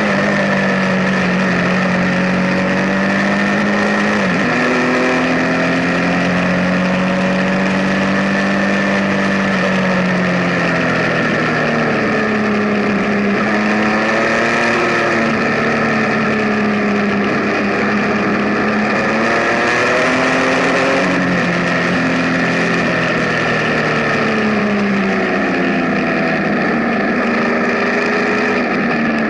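Benelli TNT 1130 Café Racer's inline-three engine under way, its note rising and falling repeatedly as the rider opens and closes the throttle.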